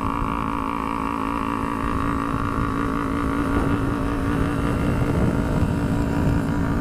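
A small 250cc parallel-twin sport bike's engine running at a steady cruise under way, with a steady engine note and a heavy rush of riding wind on the microphone.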